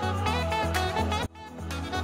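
Background music with a bass line and a steady beat, briefly dropping out about a second and a quarter in.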